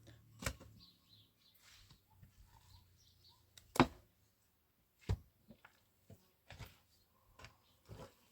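A series of irregular sharp knocks and thuds, about half a dozen spaced a second or so apart, the loudest about four seconds in.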